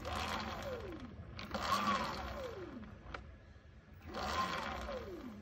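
Talaria Sting's electric motor spinning the rear wheel and chain off the ground on an unbranded 72 V sine-wave controller: a motor whine with chain whir that surges three times, each time rising and then falling away in pitch as the wheel coasts down. It is running on a hand-picked phase-wire combination that the owner suspects was not the right one.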